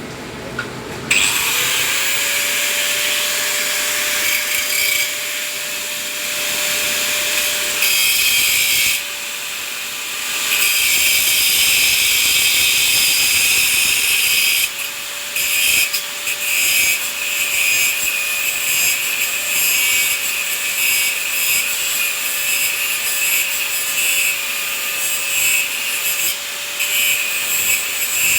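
A power tool running with a steady motor whine under a harsh grinding or cutting noise. It starts about a second in, the motor pitch rising as it spins up, and it eases off briefly twice, about a third of the way in and again about halfway.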